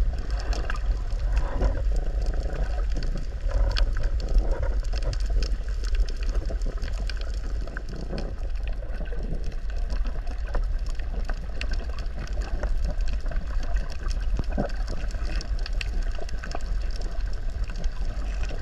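Underwater sound picked up by a camera held in the water over a coral reef: a steady low rumble with many scattered small clicks and crackles throughout, and some gurgling bubbles in the first few seconds.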